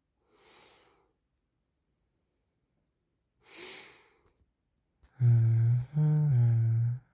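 A young man's breath sighing out twice, softly then more audibly. From about five seconds in he hums in a low voice, in long held notes that shift slightly in pitch.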